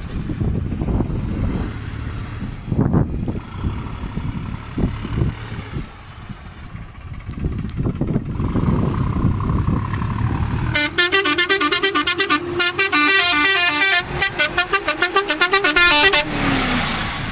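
Low rumble with a few knocks, then, about two-thirds of the way in, a musical multi-trumpet air horn (an 'Arab horn') fitted to a tractor plays a loud, rapid run of changing notes as a tune, with one note sliding down near the end.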